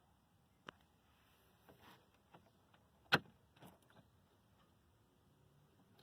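A few faint clicks and knocks, with one sharper click about three seconds in.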